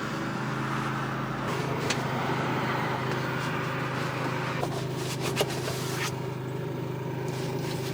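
A motor running steadily with a low, even hum that shifts slightly about a second and a half in, with a few light clicks and knocks over it.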